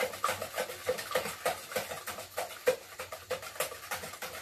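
Eggs and sugar being beaten by hand with a utensil in a plastic mixing bowl: quick, even strokes, about four or five a second, clicking against the bowl and slapping the liquid.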